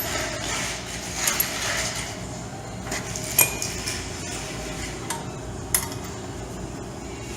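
Steel hitch pins and parts clinking and knocking as they are worked off a tractor's 3-point hitch: a few separate sharp metallic taps, the loudest about three and a half seconds in, over a low steady hum.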